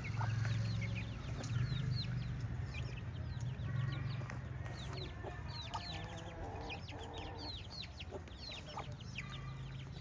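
Chicks peeping rapidly and continuously in short, high, falling cheeps, with a few lower clucks from an adult chicken in the middle and a steady low hum underneath.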